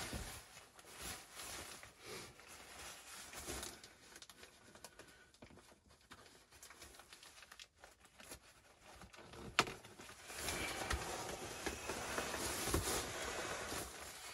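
Nylon fabric rustling and crinkling as a large yellow bag is handled and shaken out over a bivvy bag. One sharp tap about two-thirds of the way through, and the rustling grows louder and busier near the end.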